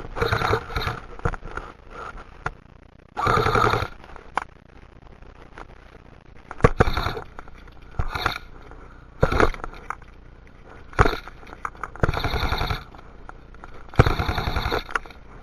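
Airsoft guns firing on full auto in about eight short bursts of rapid clicking shots, each burst lasting under a second, with gaps of one to two seconds between them.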